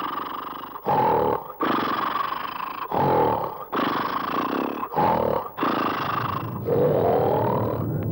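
A man snoring very loudly and theatrically: a run of harsh, rasping snores, each short breath followed by a longer one, with a rising tone in the last snore.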